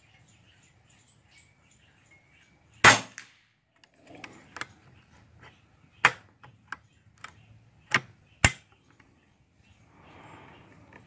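A .22 EDgun Lelya 2.0 PCP air rifle fires once about three seconds in, a sharp crack and the loudest sound. Several short sharp clicks follow over the next five seconds, typical of the action being cycled to chamber the next pellet from the magazine.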